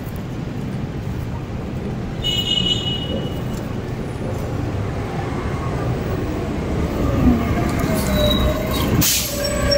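Wind and road noise from riding a bike through city traffic, with a brief high-pitched squeal about two seconds in and a short sharp hiss near the end, beside a stopped city bus.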